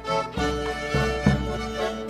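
Folk band playing an instrumental passage: fiddle and accordion carry the melody over guitar and a double-bass line that strikes a low note about every half second.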